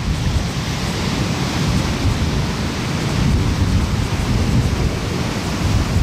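Ocean surf breaking and washing up a sandy beach, a continuous rush of water with a heavy low rumble underneath.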